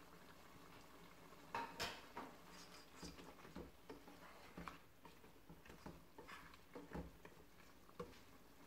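Wooden spatula stirring chunks of lamb in a cooking pot: faint scattered scrapes and soft knocks against the pan, the loudest pair about a second and a half in.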